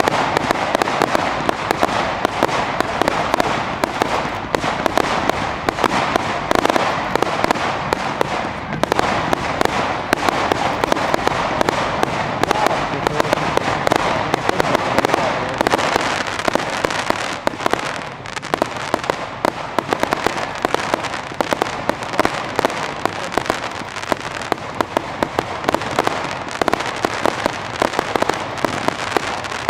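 Fireworks display: a dense, unbroken run of bangs, pops and crackles from many shells and comets bursting at once, the reports overlapping so closely that they form a constant crackle.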